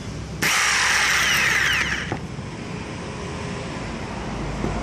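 Makita 4328 jigsaw run briefly: a sudden burst of noise of about a second and a half that cuts off sharply, then quieter handling.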